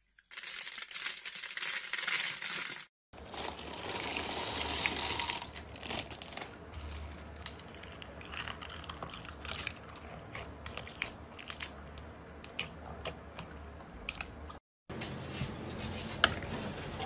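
A cubed bar of soap crumbling and crunching in the hand. After a cut comes a long stretch of dense clicking and clacking as a hand stirs through a pile of hard, clear crystal cubes sitting in slime, loudest about four to five seconds in. Near the end, after a short silence, comes the squishing of thick slime being kneaded.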